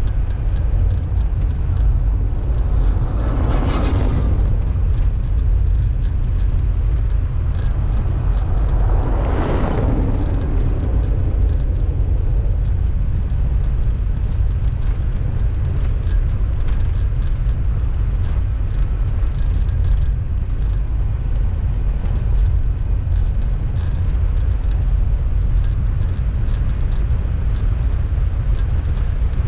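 Car driving on the road: a steady low rumble of engine and road noise, with two brief swells of noise about four and ten seconds in.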